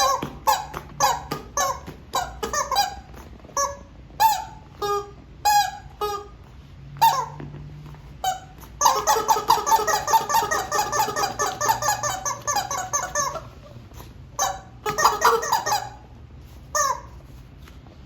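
Rubber squeaky toys, a rubber chicken and a squishy monkey, squeezed in a run of short squeaks and honks, then about four seconds of rapid, continuous squeaking in the middle before the short squeaks resume.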